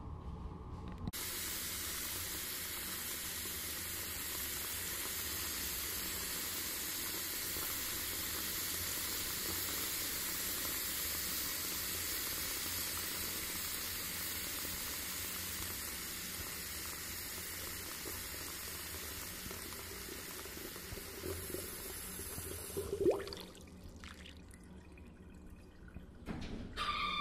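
A steady rushing hiss like running water that starts abruptly about a second in and fades down near the end, with a short rising squeak standing out shortly before it drops away.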